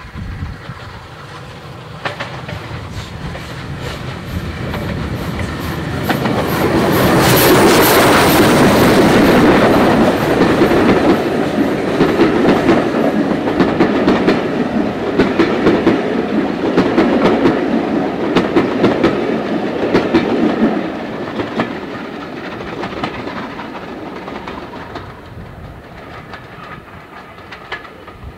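Bulleid Merchant Navy steam locomotive No. 35006 and its coaches passing close by. The sound builds to its loudest about a third of the way in as the engine goes past. Then the coaches rumble by, their wheels clicking over the rail joints, and the sound fades as the train draws away.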